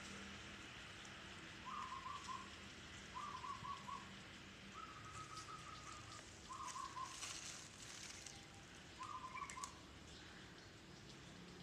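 An animal in the tree canopy giving five short calls, each a quick stuttering run of notes lasting about half a second, repeated every second or two.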